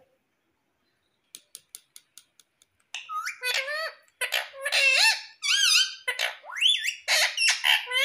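Indian ringneck parakeet giving a loud string of short squeaky calls that swoop up and down in pitch, starting about three seconds in. They follow a quick run of about eight light clicks.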